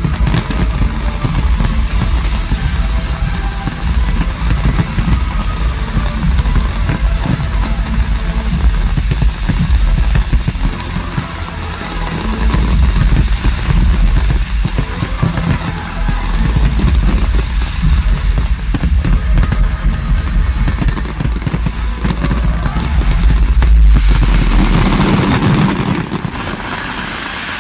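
Dense fireworks barrage, with many shell bursts and crackles close together over loud music. It swells to its loudest about 24 seconds in, then eases off near the end.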